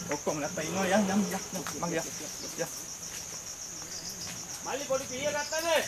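A steady, high-pitched insect chorus with a fast pulsing trill, with people talking in the background.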